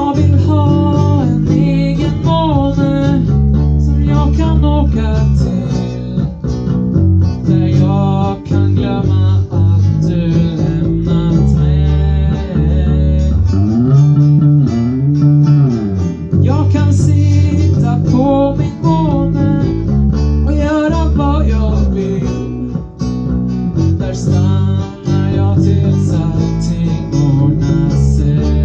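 Live acoustic guitar and electric bass accompanying a sung vocal line, with the vocal entering and pausing in phrases over steady low bass notes.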